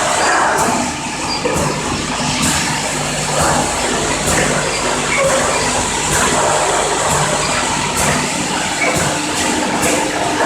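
Piston-pump filling and capping machine running: a steady mechanical hum with a dense clatter and sharp clicks coming at irregular moments.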